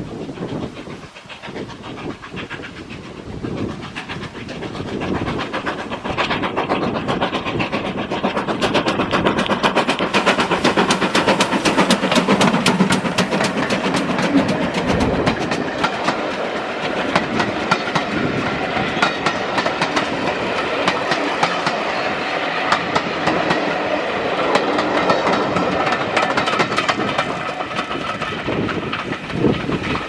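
Steam-hauled passenger train approaching and passing close by, growing louder over the first several seconds, then a long run of coach wheels clicking over the rail joints as the carriages roll past.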